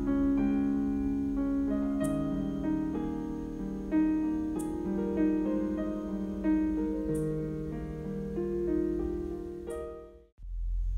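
Background piano music with a steady, gentle run of notes and a faint high tick about every two and a half seconds. It breaks off for a moment near the end and starts again.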